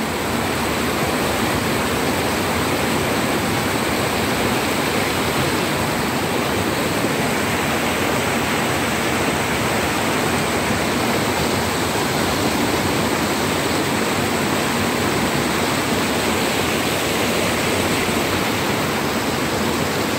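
Floodwater rushing across a highway and pouring over the edge of the road: a loud, steady rushing of water with no break.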